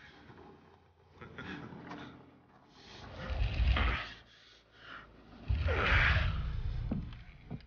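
Heavy wooden timbers scraping and knocking on rock as they are heaved along, in two long loud pushes, with grunts and hard breathing of effort.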